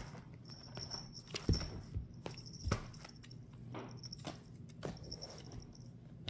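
A cat's paws thudding and padding on a leather sofa as it plays and climbs over the armrest, a handful of soft thumps, the two strongest about a second and a half and nearly three seconds in.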